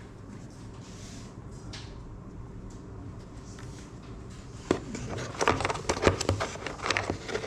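Low background noise, then from about halfway a quick, irregular run of small clicks and knocks of hard objects being handled.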